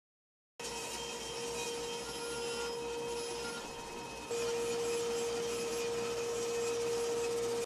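Table saw running with a steady hum while a thin sheet-goods back panel is fed through it. The sound cuts in suddenly just after the start and gets louder about four seconds in.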